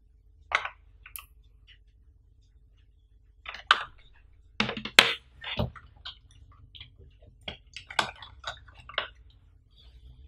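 Close-up handling sounds of a phone's USB cable and wall charger being picked up and moved about: scattered taps, clicks and light rustles, loudest about five seconds in.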